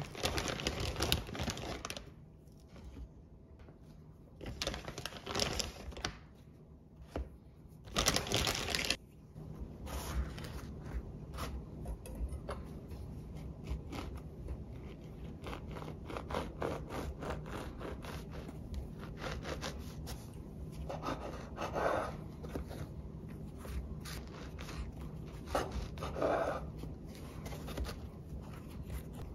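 Kitchen prep handling sounds: three bursts of rustling or crinkling in the first nine seconds, then a long run of light, irregular clicks and taps with two brief scrapes. A faint steady low hum runs underneath.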